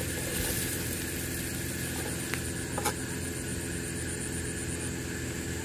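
Steady machine hum, with two light clicks between two and three seconds in.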